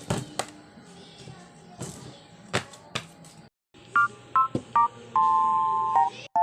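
A few scattered clicks and knocks of objects being handled. Then, after a short break, a run of short electronic beeps of two tones at once, like a keypad being pressed, ending in a longer steady beep about a second long.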